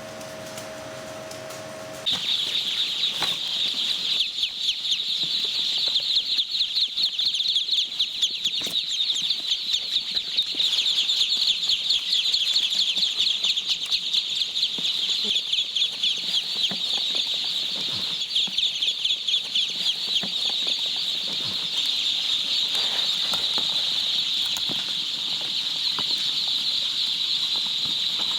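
A large crowd of ducklings peeping continuously, a dense, shrill chorus that cuts in suddenly about two seconds in, after a low steady hum.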